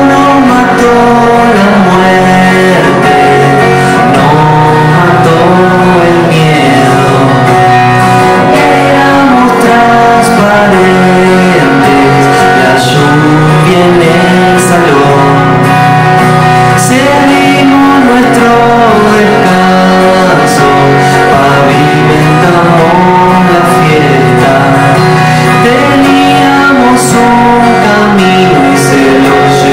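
Live song: a man singing over strummed acoustic guitar, with a second guitar accompanying.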